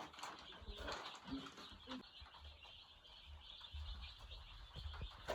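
A brood of day-old broiler chicks cheeping, a steady faint chatter with a few soft knocks.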